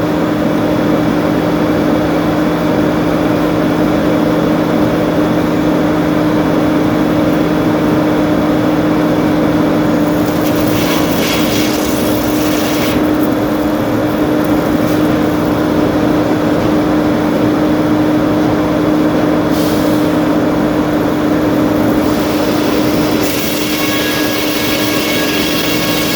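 Sawmill machinery running steadily with a constant hum. Brief spells of hissing noise come about ten seconds in, again around twenty seconds, and near the end.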